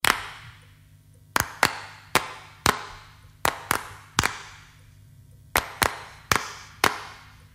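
Sharp knocks in a halting, repeated rhythm: a quick pair, then one or two spaced knocks, with each knock ringing briefly in a reverberant space. The pattern repeats three times before stopping near the end.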